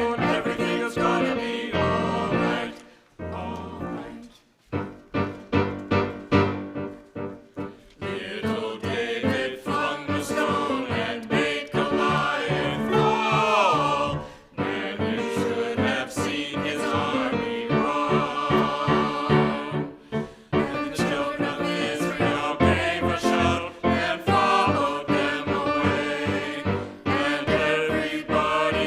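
Church music: a choir singing with instrumental accompaniment, quieter for a few seconds early on, where single notes are played, then fuller again.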